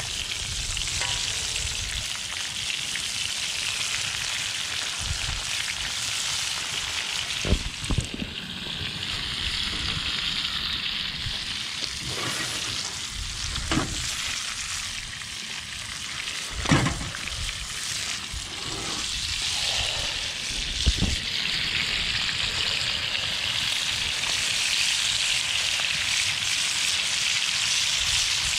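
Red rock cod fillets sizzling in oil in a cast-iron skillet over a wood fire, a steady frying hiss throughout, with four sharp clinks of metal tongs against the pan as the fillets are flipped.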